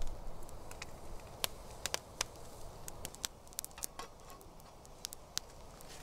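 Wood campfire crackling with an egg frying in oil beside it: irregular sharp pops and snaps over a low steady hiss.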